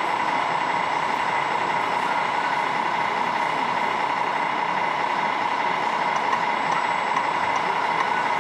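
Radio-controlled model tow truck driving slowly with a red model truck in tow: a steady motor whine with a constant pitch, over a dense background hum.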